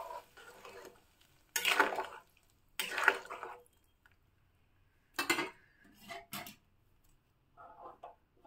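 A utensil stirring a pan of curry with water just added, scraping and knocking against the pan in five short bursts with quiet pauses between.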